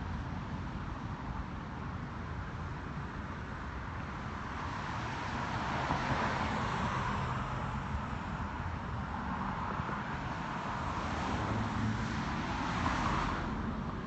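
Road traffic: cars passing on the street, the hiss swelling and fading twice (about five seconds in and again near the end) over a steady low rumble.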